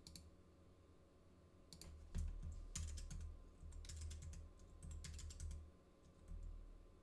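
Computer keyboard being typed on: a few keystrokes at the very start, a pause, then a quick run of keystrokes through the middle and a few more near the end.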